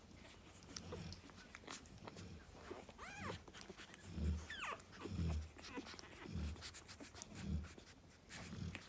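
Cane Corso snoring: low, rhythmic snores about once a second, stronger in the second half. Two brief high-pitched whimpers come in between, about three and four and a half seconds in.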